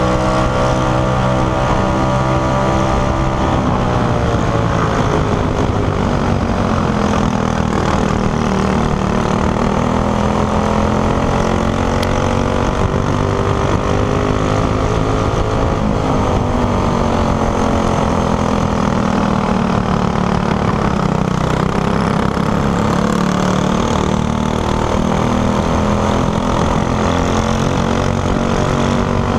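Racing kart engine heard onboard at full race pace, its pitch falling as the driver lifts for corners and climbing again down the straights, several times over.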